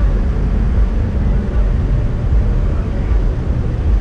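Aprilia Tuono 1100 V4 motorcycle engine idling at a standstill, a steady low rumble.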